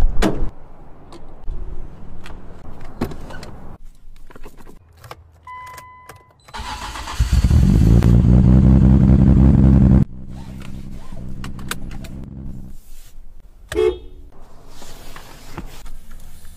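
Nissan Skyline R34 GT-R's twin-turbo straight-six being started. A short electronic beep comes first, then the starter cranks, the engine catches about six and a half seconds in and idles loudly. About ten seconds in it cuts abruptly to a quieter idle. There is a thud near the start and a knock near fourteen seconds.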